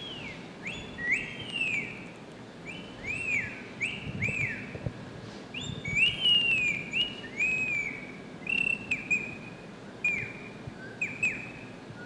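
Birdsong imitated by a nine-year-old girl with her voice, from a recording: a long run of short, clear, high whistled notes, each sweeping up and then down, in quick succession. An ornithologist likens it to the song of icterids such as the chopi blackbird and the chestnut-capped blackbird (garibaldi).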